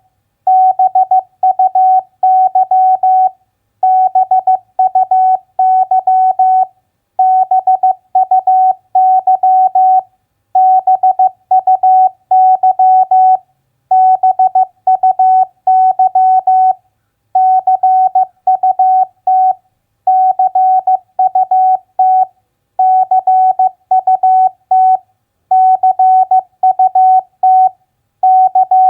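Morse code practice tone: one steady beep keyed on and off in dots and dashes at 15 words per minute, sending common three-letter words with a short pause after each word, about one word every three seconds.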